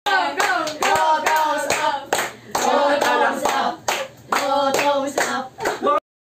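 A small group singing together and clapping in a steady rhythm, about two to three claps a second, as a cheering chant for someone drinking. It cuts off abruptly near the end.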